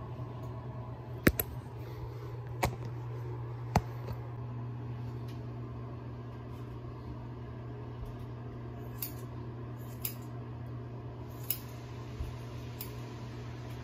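Scissors snipping hair, a few sharp snips (three close together early on, fainter ones later), over a steady low hum in a small room.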